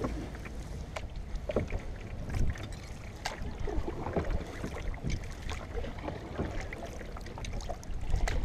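Canoe being paddled: the paddle dips and splashes in the water in irregular strokes, with small knocks, over a low rumble of wind on the microphone.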